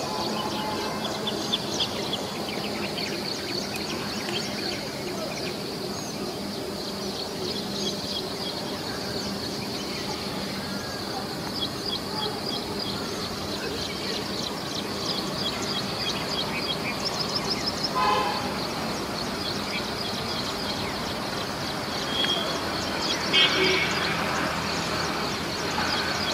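Distant EMD WDP4 diesel locomotive approaching, its engine a steady low drone, with birds chirping continuously over it. A brief high toot sounds about eighteen seconds in.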